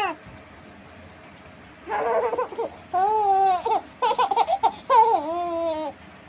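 A baby laughing and babbling in high-pitched bursts with short gaps, starting about two seconds in; some calls are drawn out into long, arching notes.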